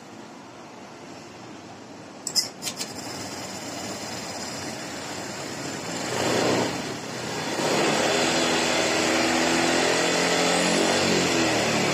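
Honda Vario 125 scooter's single-cylinder engine, quiet at first, with a few sharp clicks about two seconds in; the throttle is opened about six seconds in with a brief rev, then held so the engine runs loud and steady. The rear wheel is being driven up to speed to test the speedometer after the speed sensor's broken 12-volt supply wire was rejoined.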